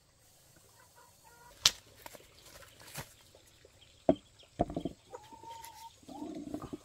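Chickens clucking, with a few sharp knocks or taps, the loudest of them about two seconds in and again near the middle.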